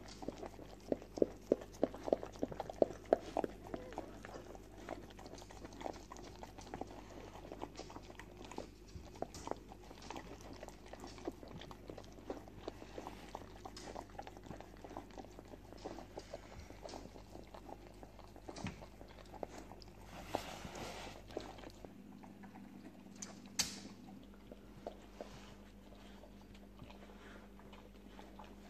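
Wet mouth sounds from a whelping English Springer Spaniel and her newborn puppies: quick smacking licks and chews, thickest in the first few seconds and sparser after.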